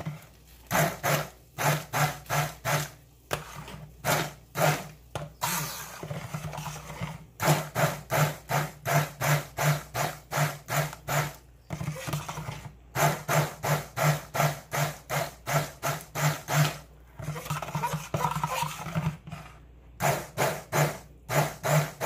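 Handheld stick blender whirring in quick pulses, about three a second, blending a saucepan of mole sauce, with a few short breaks between runs.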